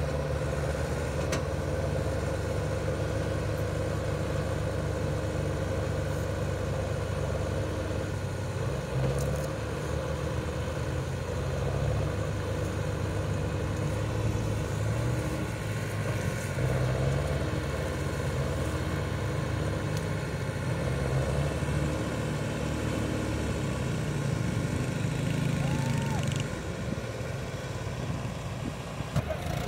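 Massey Ferguson 375 tractor's diesel engine running steadily under heavy load as it pulls an overloaded sugarcane trolley.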